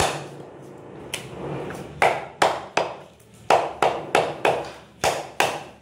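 Meat cleaver chopping lamb ribs through the bone on a wooden log block. One strike comes at the start, then about two seconds in a quick run of about nine sharp chops in small groups.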